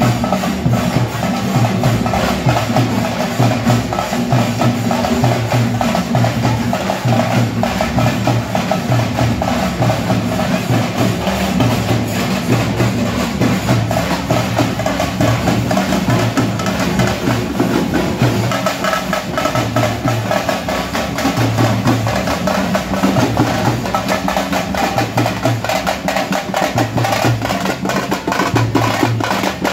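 Tamate frame drums beaten together in a fast, steady rhythm, with dense sharp strokes.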